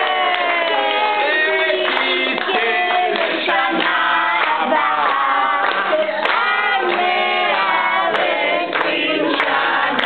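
A group of people singing together, several voices at once: a birthday song for a small child.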